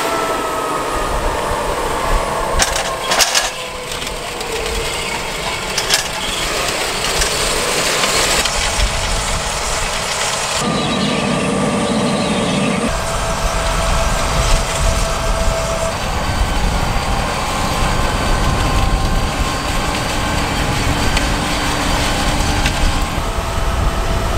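Fendt tractor pulling a White corn planter through a field: steady machinery running with clatter from the row units and a few sharp clicks two to three seconds in. The sound changes abruptly a few times.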